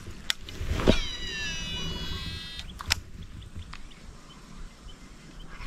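A fishing reel whirring with a thin, falling whine for about two seconds, typical of line running off the spool during a cast. A sharp knock comes just before it and a sharp click at its end.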